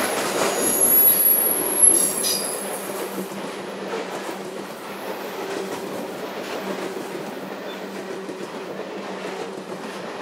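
Loaded coal cars of a freight train rolling by, wheels on rail making a steady rumble. A high-pitched wheel squeal sounds over the first two seconds or so, with a sharp louder moment just before it fades.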